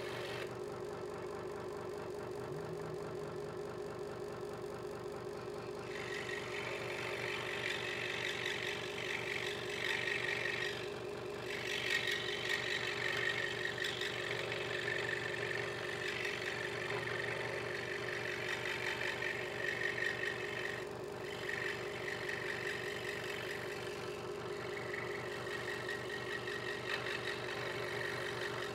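Hegner Multicut 2S scroll saw running steadily, its blade stroking rapidly up and down as it cuts a small piece of wood. A higher cutting sound joins the motor hum about six seconds in and drops out briefly twice as the work is turned.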